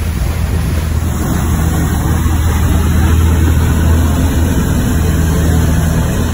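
Engines of a 1997 Sea Ray 55 ft motor yacht running steadily under way, a deep even drone, with wind and the rush of the boat's churning wake over it.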